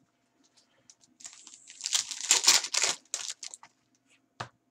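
Foil wrapper of a 2017 Bowman Chrome card pack crinkling and tearing as it is pulled open, in a run of rustling bursts lasting about two seconds, then a single short tick near the end.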